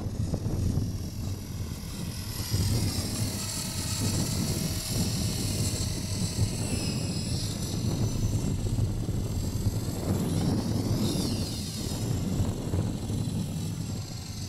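Blade CP Pro electric RC helicopter with a Feigao brushless motor flying high overhead: a high-pitched motor and rotor whine that rises and falls in pitch as it manoeuvres, over a low rumble of wind on the microphone.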